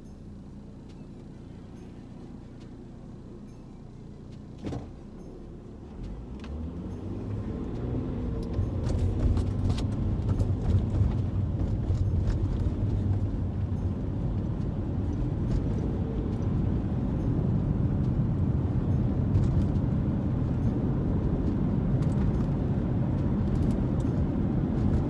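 Car interior: quiet at first, with a single sharp click about five seconds in. Then the low rumble of the engine and tyres on the road rises over a few seconds as the car gets moving, and holds steady while it drives.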